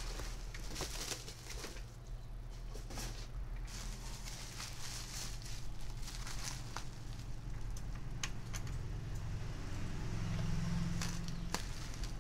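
Bubble wrap crinkling and rustling as it is handled and pulled open, with a few sharp clicks, over a steady low hum.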